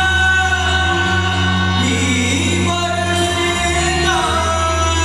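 Live folk song: singers hold long notes over steady instrumental accompaniment with a deep, unbroken bass tone, and the melody slides near the end.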